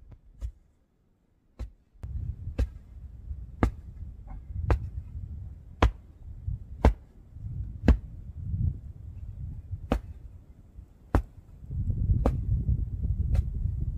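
Sharp knocks at a steady pace of about one a second, like hammer blows on wood, over a low rumble. They break off briefly near the start, then resume.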